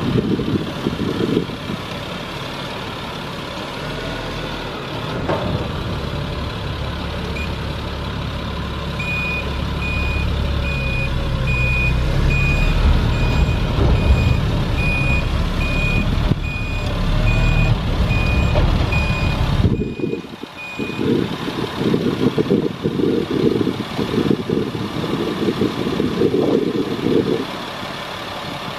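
Caterpillar 3126 six-cylinder diesel in a GMC C7500 bucket truck running, with a backup alarm beeping steadily, a little faster than once a second, from about a third of the way in to about two-thirds through. The sound cuts out briefly soon after the beeping stops, then a choppy low rumble follows.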